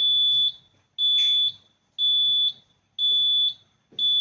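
Medical gas area alarm panel sounding its vacuum high alarm: a high-pitched electronic beep about half a second long, repeating once a second. It signals that the vacuum reading has gone past the panel's high-alarm set point.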